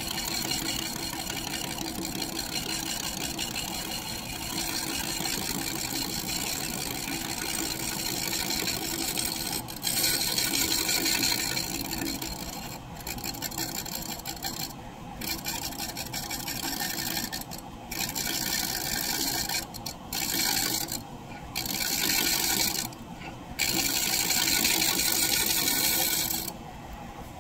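Large scraper cutting the face of a spinning maple disc on a wood lathe: a steady rasping hiss that breaks off briefly several times in the second half as the tool comes off the wood, and stops near the end, leaving the lathe running.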